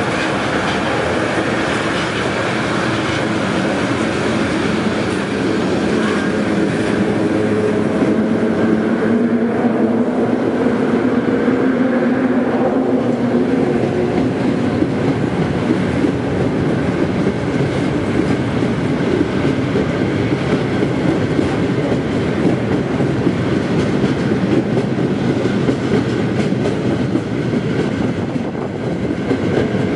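Freight train of loaded coal hopper wagons rolling past behind an electric locomotive: a steady rumble with wheels clacking over the rail joints. A hum is strongest between about six and fourteen seconds in, as the locomotive goes by.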